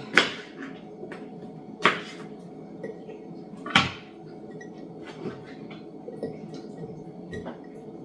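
Sharp knocks and clinks of cucumber spears being pushed into a glass mason jar: three louder ones about two seconds apart, then a few fainter clicks, over a steady faint hum.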